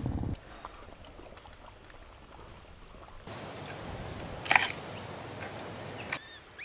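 Giant panda eating bamboo: soft crackling of stalks being chewed, with one loud crunch about four and a half seconds in. Before that, only faint ambience with light clicks.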